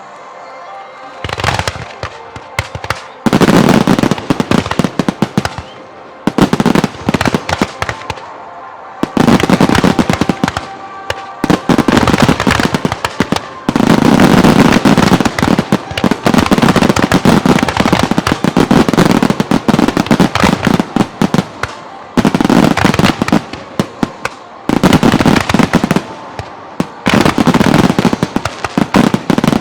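Aerial firework shells bursting in rapid barrages: dense volleys of bangs and crackles come in several waves with short lulls between them.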